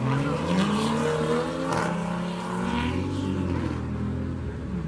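Car engine running and revving, its pitch rising and falling several times.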